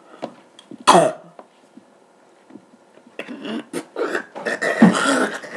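People gagging and retching at the taste of a dog-food-flavoured jelly bean. One loud falling retch about a second in, then a longer stretch of gagging and coughing noises from about three seconds in.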